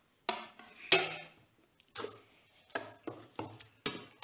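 Wooden spoon stirring a thick yogurt mixture in a stainless steel bowl, knocking and scraping against the bowl's side several times, loudest about a second in.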